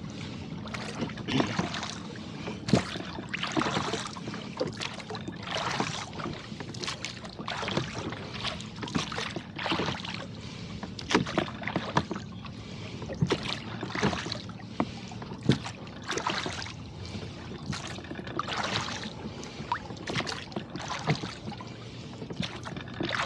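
Water splashing and slapping at a rowboat in choppy water as it is rowed, with a splash about every second over a steady low hum.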